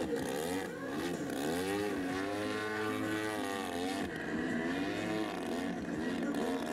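Large RC aerobatic plane's GP 123 gasoline engine and propeller revving up and down through freestyle manoeuvres, the pitch constantly rising and falling. About two seconds in, it holds a long swell that rises and then falls back over roughly two seconds.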